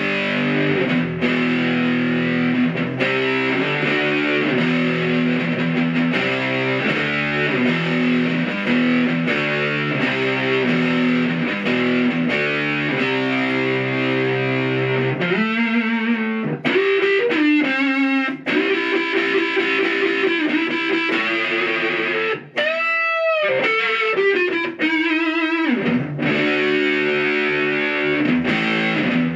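Electric guitar played through the Stomp Box Fuzz pedal's Swamp Witch channel, a low-to-medium gain boost that gives a mildly driven tone. It plays a riff of repeated notes and chords, then in the middle held notes with wide bends and vibrato, and returns to the riff near the end.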